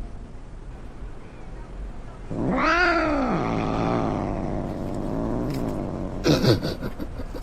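Domestic cat meowing: one long drawn-out meow that rises and falls about two seconds in, then a shorter falling meow near the end.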